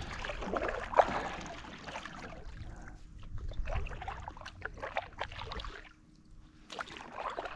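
Kayak paddle strokes in shallow water: the blade dipping and pulling, with irregular splashes and water trickling and dripping off it. The strokes ease off briefly about six seconds in.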